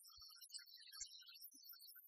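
Near silence: very faint music, heard as scattered short high tones and a few soft low thumps.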